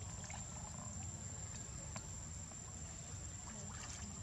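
Steady low rumble with a constant thin high whine, and a few faint splashes near the end from macaques swimming in a pool.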